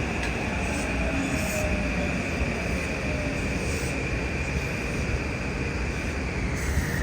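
Train passing at speed: a steady noise of wheels on rail with a high whine that drops in pitch near the end.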